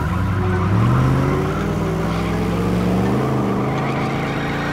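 Cartoon truck engine sound effect: a low, steady engine drone that revs up a little about a second in and then holds with a slight waver, under load as a tow truck strains to pull a monster truck on a cable.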